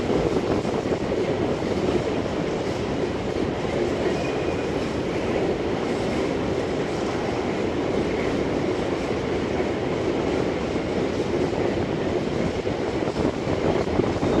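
Freight train of open high-sided wagons rolling along the track, giving a continuous, steady wheel-on-rail noise.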